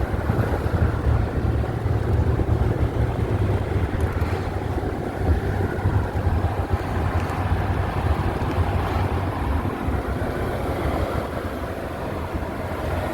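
1996 Ford Mustang GT's 4.6-litre two-valve V8 running steadily under way, a low rumble heard from inside the open convertible, with wind rushing over the microphone.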